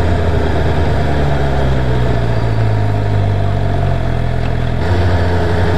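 2017 Suzuki GSX-R 750's inline-four engine running steadily at low revs at low road speed. The pitch rises a little and eases back near the end.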